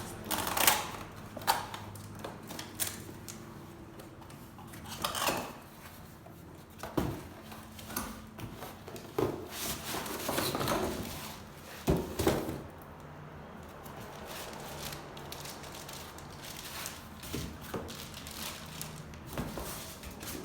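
Packaging being handled and opened: irregular knocks, taps and short rustling scrapes, the sharpest knocks near the start and about twelve seconds in.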